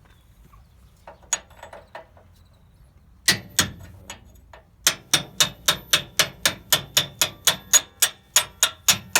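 Hammer driving a steel camber bolt through a suspension arm mount: a few light taps, two hard blows a little over three seconds in, then steady blows about four a second with a metallic ring.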